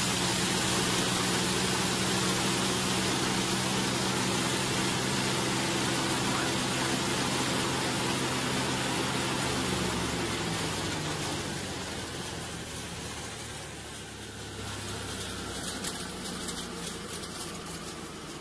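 Grain-crushing machine running steadily, with a hum and a rushing noise as it grinds grain into fine meal. About ten seconds in, its pitch slides down and it grows quieter as it runs down.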